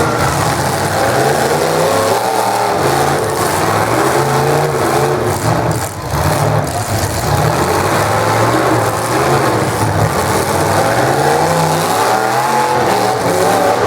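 Full-size demolition derby car engines revving hard, their pitch repeatedly climbing and dropping as the cars accelerate and back off, with a few sharp knocks around the middle.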